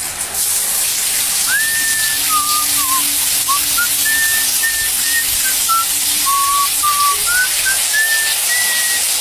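Shower spray running steadily onto a tiled floor. A whistled tune of short stepping notes plays over it from about a second and a half in.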